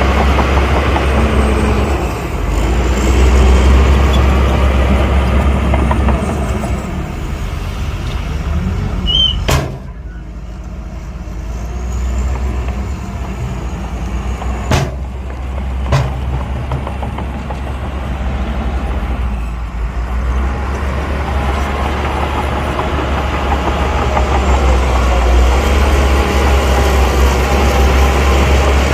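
Heavy diesel earthmoving machinery running with a deep, steady drone that eases off about ten seconds in and builds again later. A few sharp clanks stand out, one near ten seconds and two close together around fifteen seconds.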